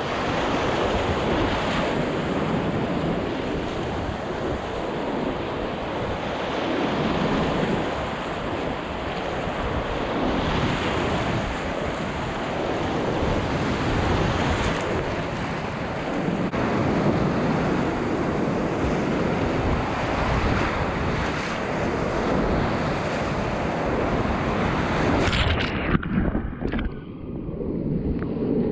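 Whitewater rapids rushing and splashing close to the microphone, in slow surges. About 26 seconds in there is a sharp splash, and then the sound turns muffled.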